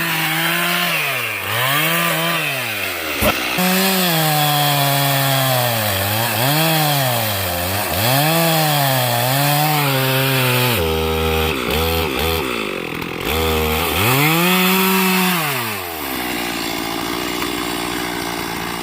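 Stihl MS 391 two-stroke chainsaw cutting wood, its engine revving up and down over and over. The pitch sags lower and choppier for a few seconds past the middle, then the saw drops back to a steady idle near the end.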